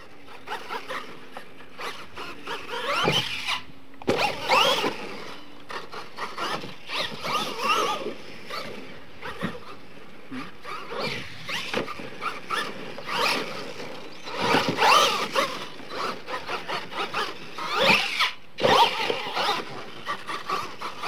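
RC monster truck's motor whining up and down as the throttle is worked, with repeated louder surges as the truck drives and jumps on a dirt course.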